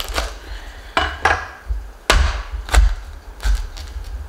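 Large kitchen knife being forced through the hard rind of a whole spaghetti squash on a cutting board: a string of irregular sharp cracks and knocks, with thuds against the board, as the squash splits apart.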